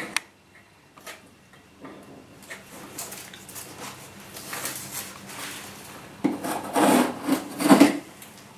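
Stanley knife cutting vinyl flooring, with scraping and rubbing as the sheet is worked; several louder strokes come near the end.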